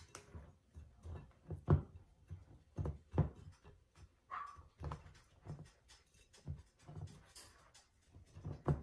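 Raw chicken breast being pressed and turned in a pan of flour mixture: a string of soft, irregular pats and thumps, one sharper thump a little under two seconds in.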